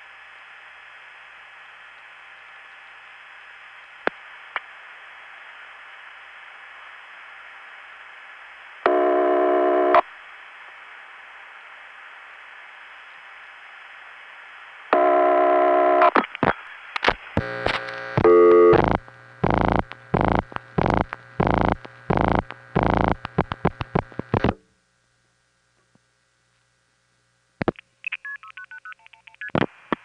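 Analog long-distance telephone line audio from 1976: steady line hiss with a couple of switching clicks, a one-second buzzy tone, then a quick run of short signalling tone bursts lasting several seconds. The line goes dead silent for about three seconds, then faint stepping tones come on near the end.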